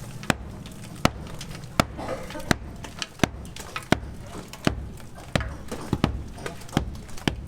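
Steady, evenly paced hammer blows, about one every three-quarters of a second, over a low background rumble.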